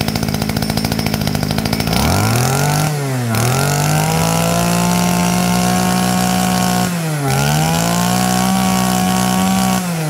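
Robin 22cc two-stroke brush cutter engine idling for about two seconds, then revved up on the throttle to high speed and held there. The revs dip briefly twice, about three and seven seconds in, climbing straight back each time, and drop back toward idle near the end.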